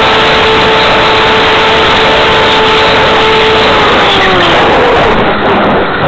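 Motor and propeller of an RC flying wing heard through its onboard camera, a steady whine over loud rushing wind noise; about four seconds in the whine drops in pitch as the motor slows.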